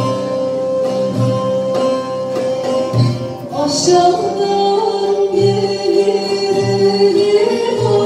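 A live Turkish folk song: bağlama (saz) and other plucked strings play over a steady hand-drum beat. About three and a half seconds in, a woman's solo voice comes in, singing an ornamented line over the ensemble.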